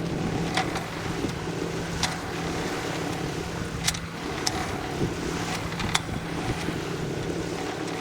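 Sailboat underway: a steady low hum under a wash of water and wind noise on the microphone, with sharp clicks or knocks every second or two.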